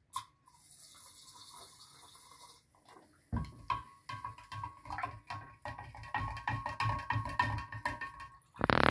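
A spoon stirring brine in a large glass jar, knocking and scraping against the glass in quick irregular strokes with a ringing clink, as soda solution is mixed in to raise the pH. A soft hiss comes first, and a louder clatter comes near the end.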